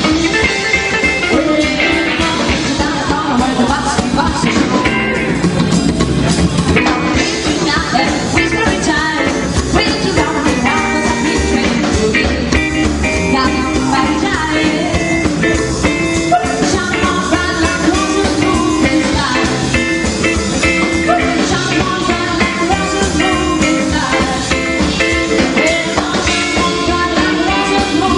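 Rockabilly band playing live, a steady driving beat under pitched instrument lines, with a woman singing.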